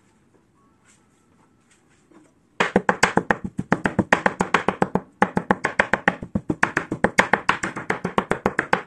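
Cleaver chopping raw chicken into mince on a cutting board: rapid, even knocks about six a second, starting about two and a half seconds in, with a brief pause in the middle.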